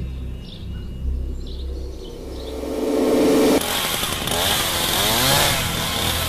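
A harsh motor buzz builds up, then about halfway through turns into a louder rasping run with rising and falling revs, over a low drone.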